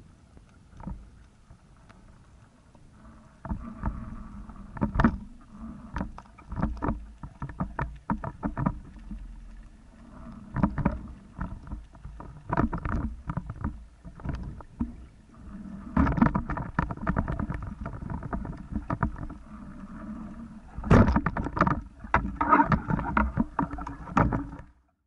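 Underwater sound through a camera housing: a steady low hum with many irregular clicks, knocks and rattles from a speargun's shaft and line as a speared dusky grouper struggles on it, coming in dense clusters about two-thirds of the way through and again near the end.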